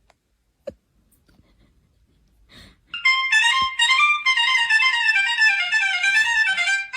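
A single click, then a high-pitched melodic instrument playing a fast run of notes that mostly steps downward, starting about three seconds in.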